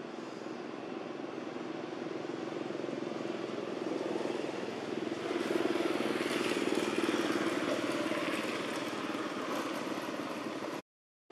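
Engine noise from a passing motor vehicle, growing louder about five seconds in and then easing off, cut off abruptly near the end.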